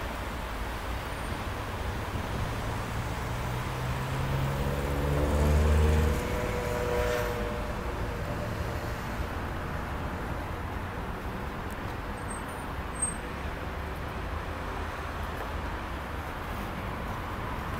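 TMK 2100 prototype tram pulling away from a stop: its electric traction drive gives a whine that rises in pitch about four to seven seconds in, loudest near six seconds, then the tram rolls past steadily along the rails.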